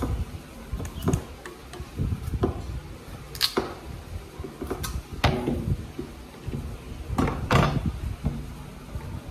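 Kitchen knife paring the rind off a hand-held slice of squash: irregular scraping and cutting strokes, with a few sharp clicks and knocks.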